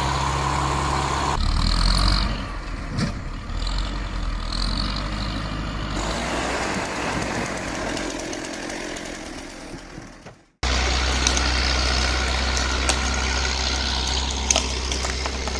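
Diesel engine of an LKT-81 Turbo forestry skidder running steadily. It is heard across several shots that change abruptly, with a brief gap about ten and a half seconds in.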